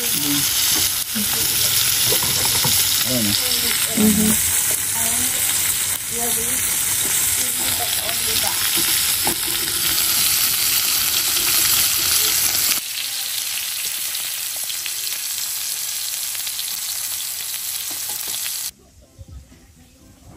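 Beef steaks sizzling in an oiled frying pan over a portable gas stove, a steady loud hiss of frying fat. The sizzle eases a little about two-thirds of the way through and then drops away suddenly near the end.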